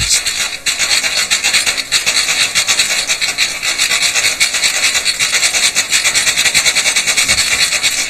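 A loud, steady rasping hiss made of rapid crackling pulses, mostly high-pitched.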